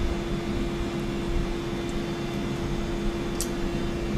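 Steady hum of kitchen machinery with one held tone running through it, and a single brief light click about three and a half seconds in.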